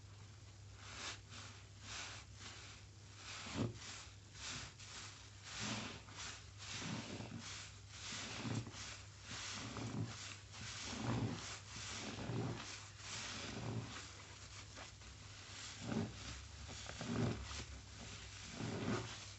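A soaked sponge squeezed and kneaded over and over in soapy water with gloved hands: wet, sudsy squelches, one after another about once a second.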